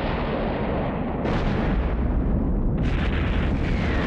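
Nuclear explosion blasts: a continuous deep rumble, with fresh blasts breaking in about a second in and again near three seconds.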